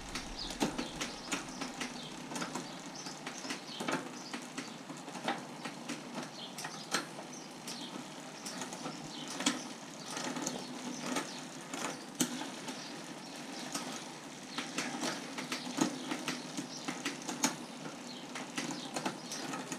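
Chain and derailleur gears of a Dawes Galaxy touring bicycle running on a workstand: a steady whir of the chain over the sprockets and derailleur, with many irregular sharp clicks and ticks, as the gear setup is checked.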